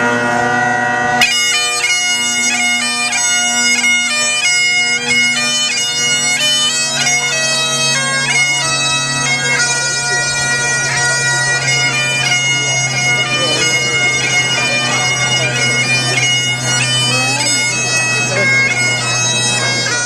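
Bagpipes playing a tune: steady drones held underneath while the chanter melody moves from note to note above. The melody comes in strongly about a second in.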